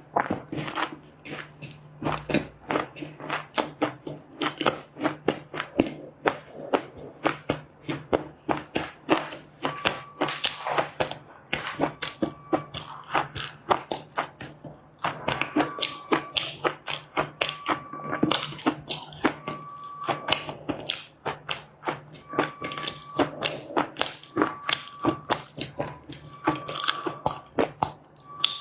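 Close-miked biting and chewing of dry clay chunks: rapid, sharp crunching and crackling, several crunches a second, with only brief pauses.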